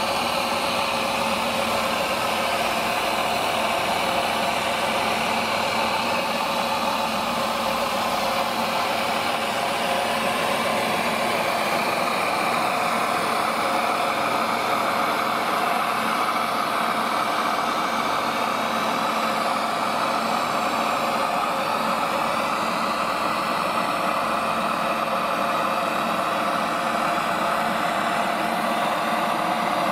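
Radio-controlled model fire truck's onboard water pump running steadily, with water jetting from its two roof monitors.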